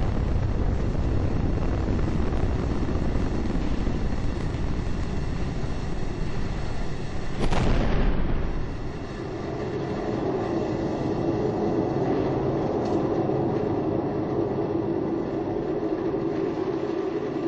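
Space Shuttle ascent noise picked up by a camera riding on the launch stack: a steady rumble from the solid rocket boosters and main engines. About seven and a half seconds in, a louder burst with a falling hiss marks solid rocket booster separation. After it the deep rumble drops away and a steadier hum remains.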